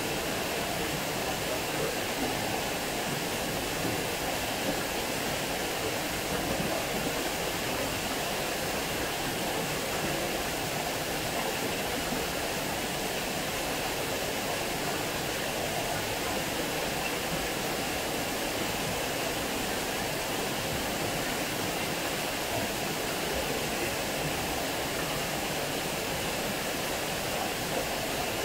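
Water spilling over a small weir and splashing into the pool below: a steady, even rush.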